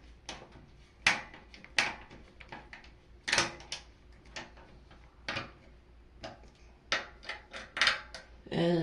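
Scattered sharp clicks and taps, about a dozen at uneven intervals, as screws are fastened to hold a washing machine's lid switch in place.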